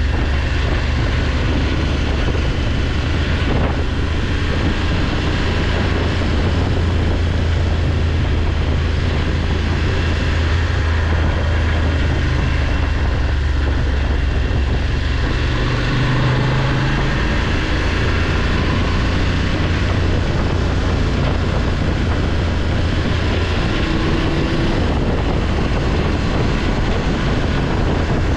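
BMW F850GS Adventure's parallel-twin engine running under way, a steady low drone mixed with wind rush. A little over halfway through, the drone briefly breaks and then settles again.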